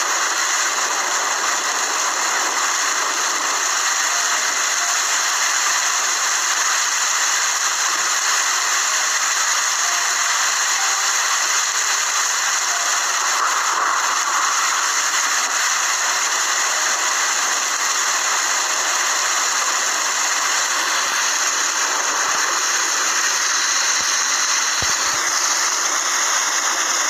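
Steady rain: a continuous, even hiss with no breaks.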